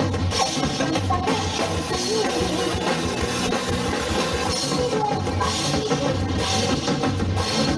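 Rock song played live by a band, with a drum kit and guitar.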